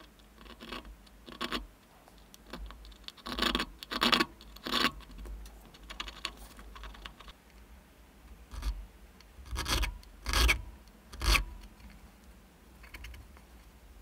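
Needle file scraping in short, uneven hand strokes across a small brass lighter part, about a dozen strokes with pauses between; the loudest come about four seconds in and again around ten to eleven seconds.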